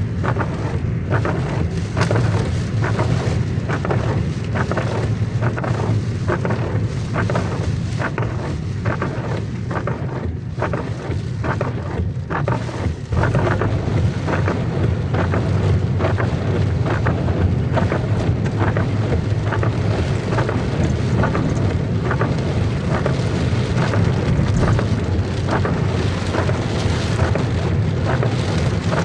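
Heavy rain falling steadily, with many sharp drop hits close by and a constant low rumble underneath.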